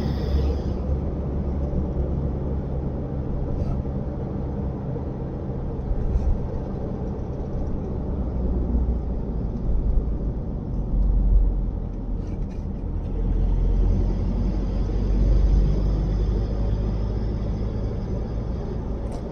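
A road vehicle driving along, heard from on board: a steady low engine and road rumble that swells in the second half.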